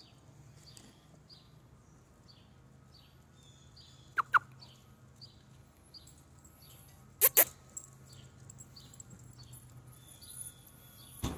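A dog gives two pairs of short, sharp yips, about four and seven seconds in, with a thump near the end. Under them a small bird chirps about twice a second.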